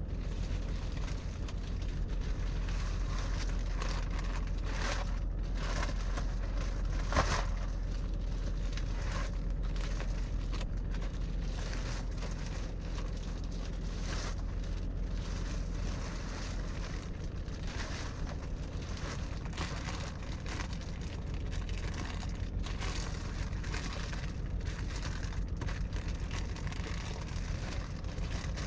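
Plastic wrapping crinkling and rustling as a new mattress is unwrapped and handled, with one sharper crackle about seven seconds in. Under it runs the steady low hum of the truck's engine idling.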